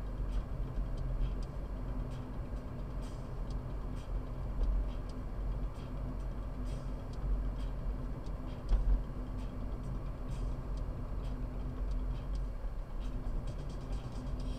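Car driving at a steady speed, heard from inside the cabin: a low engine and tyre rumble with a steady hum and faint, irregular ticks.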